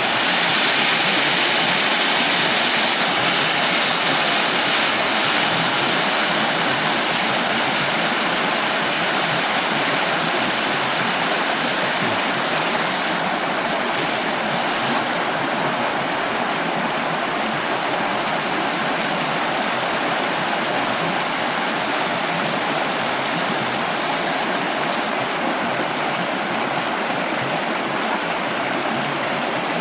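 A stream rushing steadily, a loud, even flow of water.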